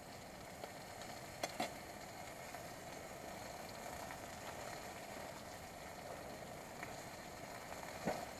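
Wood campfire burning with a steady hiss, and sharp crackles about a second and a half in and again near the end.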